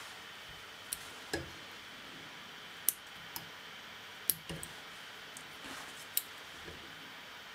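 Small fly-tying scissors snipping through poly yarn on a caddis fly, about eight sharp snips at irregular intervals over a faint steady hiss.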